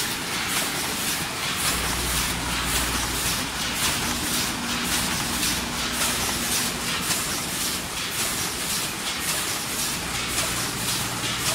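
Automatic snack bag-packaging machines running: a continuous mechanical clatter of many quick, irregular clicks over a low hum.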